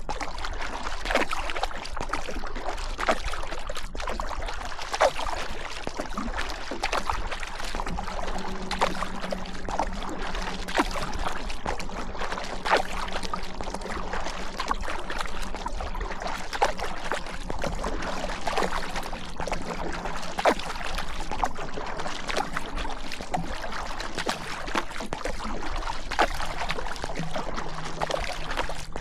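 River water rushing and splashing around a small paddled boat, with a paddle stroke dipping in about every two seconds.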